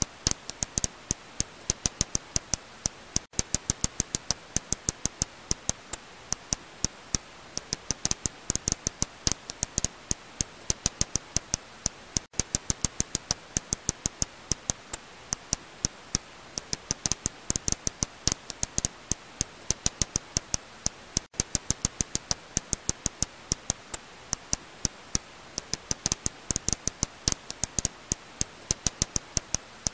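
Serotine bat echolocation calls, made audible by a bat detector as a fast, uneven train of sharp clicks, several a second, with a short gap about every nine seconds.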